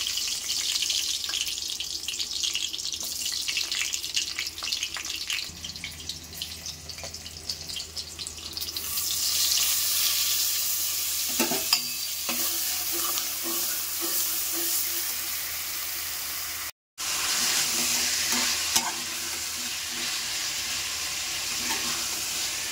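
Onions and whole spices frying in hot oil in a kadai: sizzling with many sharp crackling pops, turning into a louder, steadier sizzle from about nine seconds in, with a spoon stirring. The sound cuts out for a moment near seventeen seconds, then the sizzle carries on.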